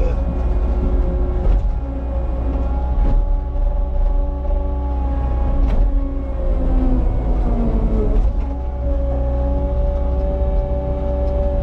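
Cat 279 skid steer's diesel engine running steadily at work, with a high whine that dips in pitch about eight seconds in and comes back up. A few sharp knocks are heard along the way.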